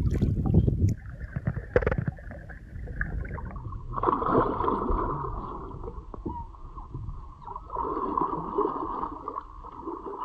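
Water sloshing and splashing at the side of a boat as a large snook is held in the water by hand and then released to swim off. From about four seconds in, a steady whine runs underneath.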